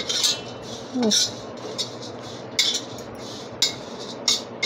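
Metal spatula scraping against an iron kadhai in about five short, irregular strokes, stirring grated dried coconut as it roasts.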